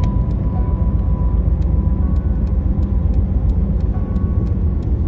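Steady low rumble of a car driving along a road, heard from inside the car: engine and tyre noise at an even level.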